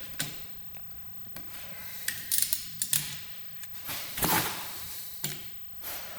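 Scattered metallic clicks and knocks of a hand wrench on the connecting-rod cap bolts of a G4KD engine as they are turned a further 90 degrees, the loudest knock about four seconds in.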